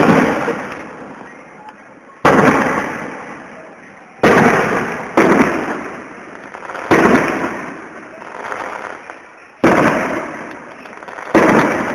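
Aerial firework shells bursting, about seven loud bangs a second or two apart, each trailing off in a long echoing rumble.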